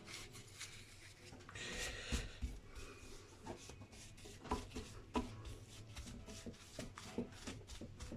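Cloth rubbing over a guitar's lacquered finish while it is wiped clean, with a spell of rubbing about two seconds in and scattered light clicks and taps of handling.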